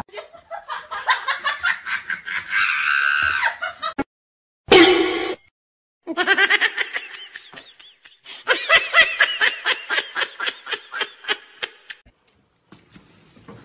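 People laughing in rhythmic bursts of 'ha-ha' pulses, broken into several stretches by abrupt cuts to silence.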